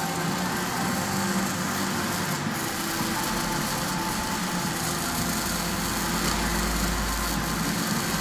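An engine running steadily, a constant drone with a hiss over it.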